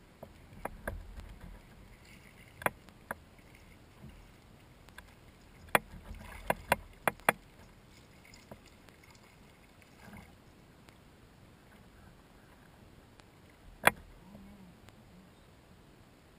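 Sharp knocks and clicks of fishing gear and hands against a plastic kayak while a hooked fish is reeled in and landed. There are about ten in all, with a quick run of five around the middle and a single loud knock near the end.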